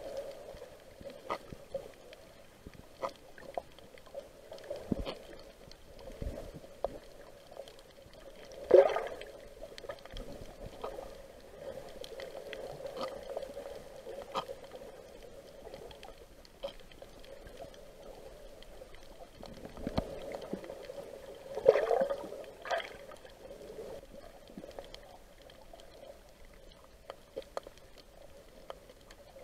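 Underwater water noise heard through a camera housing: a steady muffled wash and gurgle with scattered sharp clicks, swelling louder about nine seconds in and again around twenty-two seconds.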